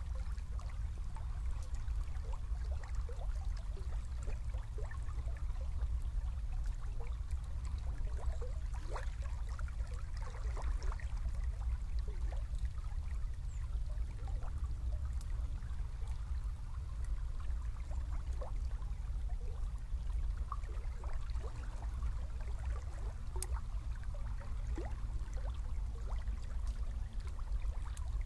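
Small river flowing: a steady low rumble of moving water with many small gurgles and trickles throughout.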